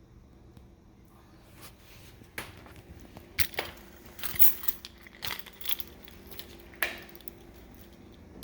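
A run of short clicks, rustles and knocks from objects being handled, loudest about four seconds in.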